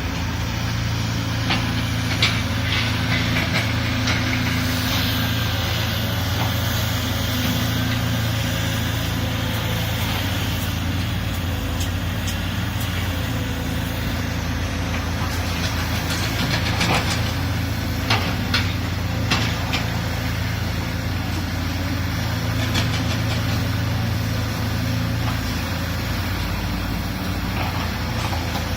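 Excavator's diesel engine running steadily, with a run of short sharp knocks a little past the middle.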